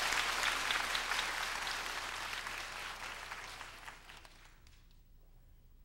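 Theatre audience applauding, the clapping fading away and dying out about four and a half seconds in.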